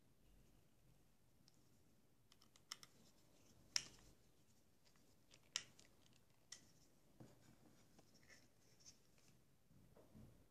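Faint, scattered light clicks and taps of small screws and a screwdriver as the screws go into an SSD's metal mounting frame; the loudest click comes about four seconds in.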